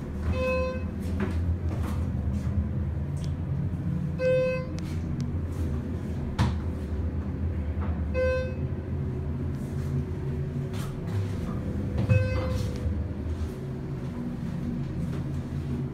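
Schindler 330A hydraulic elevator heard from inside the moving car: a steady low hum of travel, with a single electronic chime sounding four times about four seconds apart.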